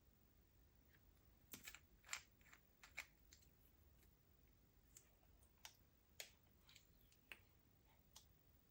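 Slime being handled and mixed, giving faint, irregular sticky clicks and small pops, about a dozen in all.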